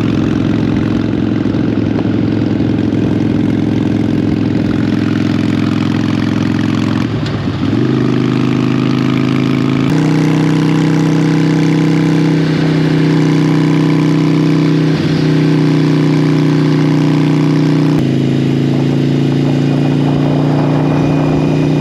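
Motorcycle engine running steadily at cruising speed, with wind noise over it. The engine note steps a little higher about seven and a half seconds in, and again at about ten seconds.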